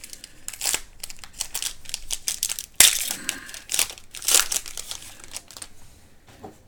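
Crinkling of a foil trading-card pack wrapper as cards are handled and flipped, in irregular rustles with one sharp snap near the middle.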